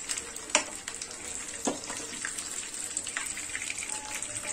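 Hot frying oil sizzling with a steady hiss and a few sharp crackles.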